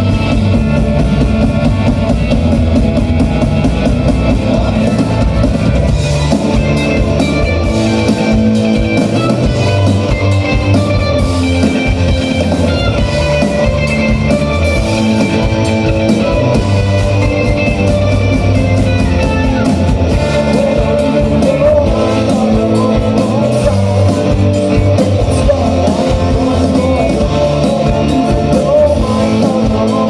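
A rock band playing live, with electric guitars, bass and a drum kit and a lead singer.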